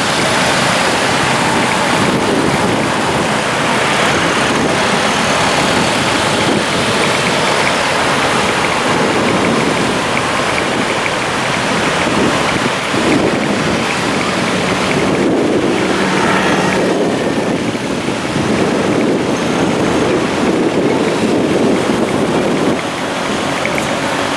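Steady rush of wind buffeting the microphone of a moving rider, over the noise of road traffic. A brief steady hum is heard a little past the middle.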